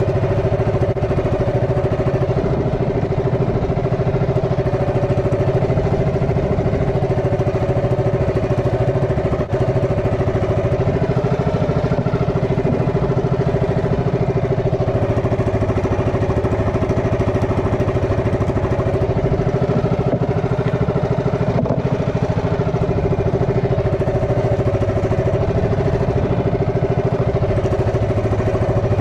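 A small engine running steadily at an even speed: a constant hum that holds unchanged throughout.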